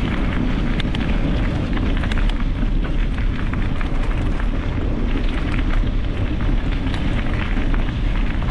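Wind buffeting the microphone while a bicycle rolls over a rough trail, with a steady crackle and small clicks from the tyres and the bike rattling.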